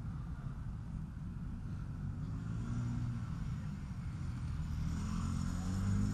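Road noise heard from a moving bicycle, with low wind rumble on a helmet-mounted camera's microphone, and a motor vehicle's engine close by, growing louder over the second half.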